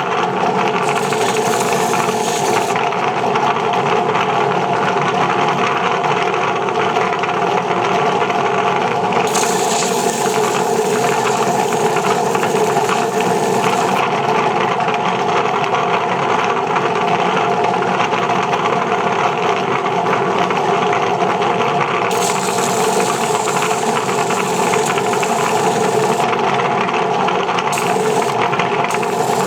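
A motorised rotary wet-sanding machine runs steadily, wearing down a concrete piece. A higher hiss comes and goes several times over the steady whir.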